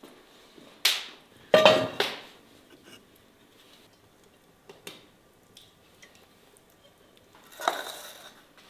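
Metal cookware clanking: a few sharp knocks with a brief ring as a heavy pan is handled about a second in, then an enamel bowl set down on a counter with a short scrape near the end.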